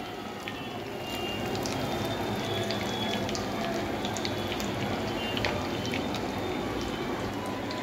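Hot oil sizzling steadily with many small scattered pops and crackles as vermicelli-coated chicken cutlets fry in a pan.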